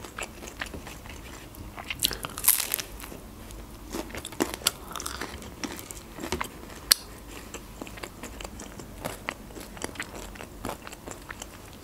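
Close-miked chewing of crusty Turkish pide (a baked flatbread with meat, peppers and cheese), with irregular crisp crunches of the crust and soft mouth sounds; the sharpest crunches come about two seconds in and near seven seconds.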